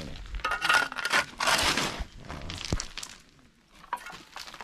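Gritty scraping and crunching of broken concrete rubble being cleared, in a few strokes with a sharp knock near the end of them.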